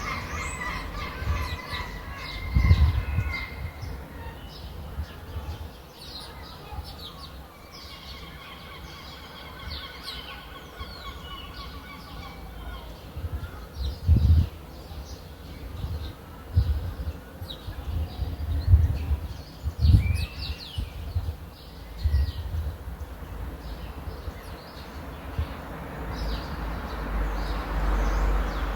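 Many small birds chirping, with a few low thumps, the loudest about three seconds in and again near the middle.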